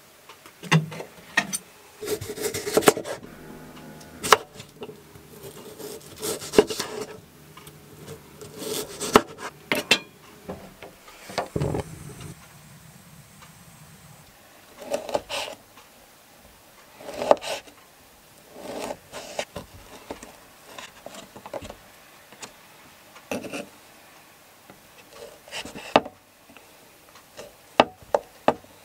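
Hand food preparation on a wooden cutting board: a knife cutting and scraping on the board, with knocks and clatter of utensils and a frying pan, in many separate short bursts. A steady low hum runs for several seconds in the first half.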